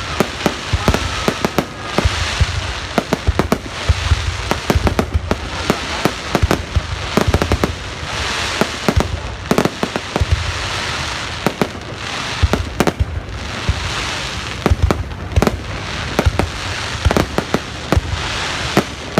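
Fireworks going off: a continuous barrage of sharp bangs at irregular intervals, with crackling hiss between them.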